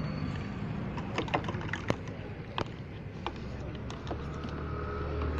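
Scattered light clicks and clinks of small steel cups and utensils being handled on a steel counter, over steady background noise. A low hum comes in about four seconds in.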